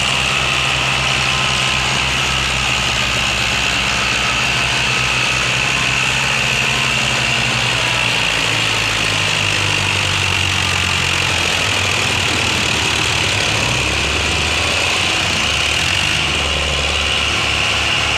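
Diesel tractor engines working hard under heavy load while pulling a trolley piled with sugarcane. The engine note changes about halfway through, as a red Belarus tractor takes over the pull.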